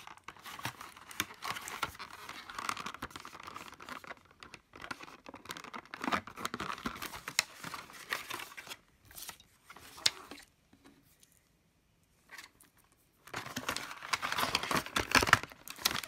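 Cardboard box sleeve and clear plastic tray of a cable's packaging rustling and crinkling as they are handled and slid apart, with small scratches and clicks. It drops to near quiet about two-thirds of the way through, then comes back louder near the end.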